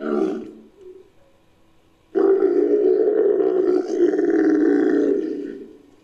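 Made-up creature call for the extinct giraffid Bramatherium, mixed from camel, moose and bull recordings. A short call comes first, then about two seconds in a long deep call of roughly three seconds that fades out.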